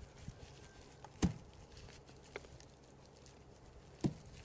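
Quiet handling noise from hands working at the couch's springs and twine, with a few sharp clicks, the loudest about a second in and another near the end.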